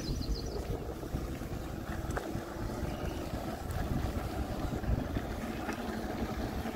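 Wind rushing over a phone's microphone while riding a RadPower RadRover 6+ electric fat-tyre bike down a sandy dirt road: a steady low rumble of wind and tyre noise.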